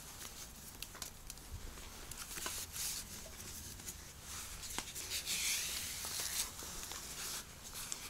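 Rustling, scraping and small clicks of a strap being wrapped around a wooden post and a PVC conduit and pulled tight, with a longer hissing rub a little past halfway.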